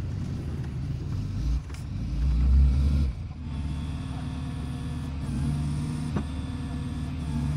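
Rollback truck's engine running steadily while its tilted bed lets a car down, with a louder low rumble that swells and falls away about two to three seconds in. A single sharp knock comes near the end.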